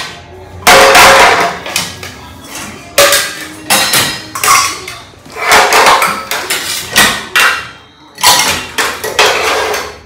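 Dishes being unloaded from a dishwasher by hand and set down: a series of about half a dozen loud clanks, each ringing briefly.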